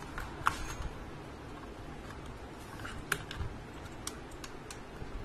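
Sharp plastic clicks and taps as a RAM stick is pressed into a desktop motherboard's memory slot: two loud clicks about two and a half seconds apart, then a few lighter ones near the end.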